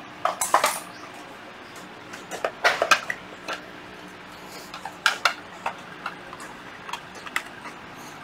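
Hands handling cordless power tools, including a Hitachi 18V circular saw, on a hard floor: irregular clatter and clicks of hard plastic and metal knocking together, in a few short clusters.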